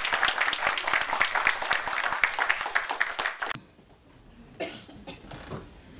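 A congregation applauding, many hands clapping, which stops suddenly about three and a half seconds in. A quieter room follows, with one faint bump about a second later.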